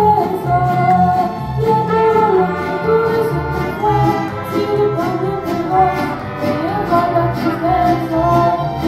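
Mariachi ensemble playing live: a woman sings the melody into a microphone over bowed violins and a rhythmic, pulsing low accompaniment.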